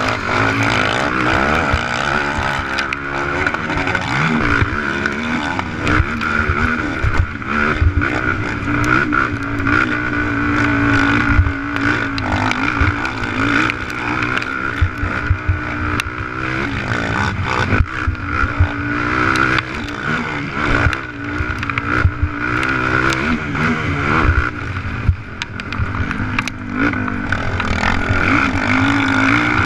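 Honda TRX450R racing quad's single-cylinder four-stroke engine under hard riding, revving up and down through acceleration and shifts, with repeated sharp knocks as the quad pounds over the rough track.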